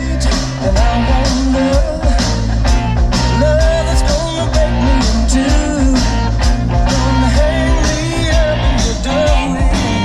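A song with singing and heavy bass playing loud on a Jeep's car stereo with a 10-inch Kicker L7 subwoofer, heard inside the cabin.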